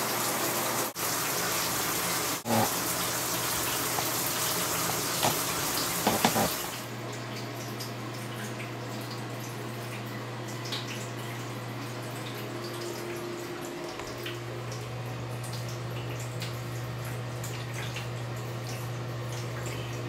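Running water, a steady rush that stops about seven seconds in. A low steady hum goes on after it, with faint drips.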